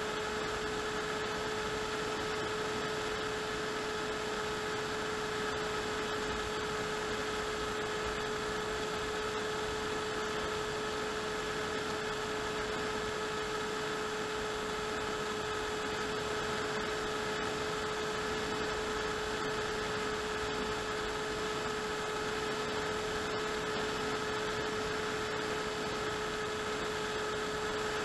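Model aircraft's motor and propeller running at a steady throttle, a constant whine over air rush, heard through the onboard camera's microphone.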